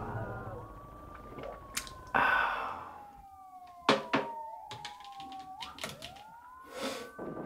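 Several distant sirens wailing and overlapping in the background, with sharp knocks and clinks of a wine glass being handled and set into a silicone wall holder. The loudest knock comes about four seconds in, and there is a short burst of rushing noise about two seconds in.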